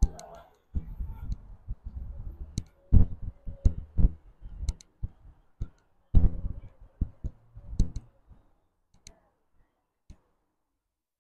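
Irregular low rumbles and thumps with scattered sharp clicks, typical of handling noise on a handheld camera's microphone during walking. It dies down after about eight seconds, leaving only a few faint clicks.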